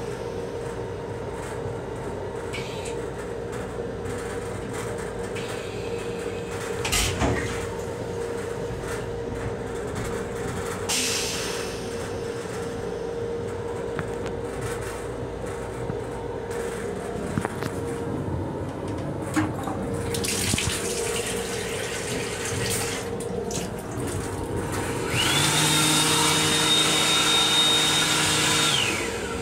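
Inside an M7 railcar restroom, a steady hum runs under scattered knocks and short hissing rushes. Near the end a small motor starts abruptly with a high whine and a rush of air or water, runs for about four seconds, and cuts off.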